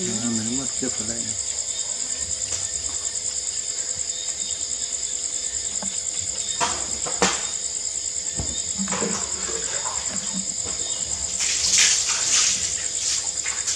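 Steady, shrill chorus of night insects such as crickets. A few sharp clicks about halfway through and a brief rustle of leaves near the end come from the rabbit feeding on the greens.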